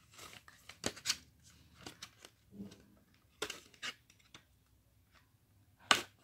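Scattered rustles, clicks and scrapes of wireless ear-hook earphones and their cable being handled and pulled out of a molded packaging tray, with a sharper click near the end.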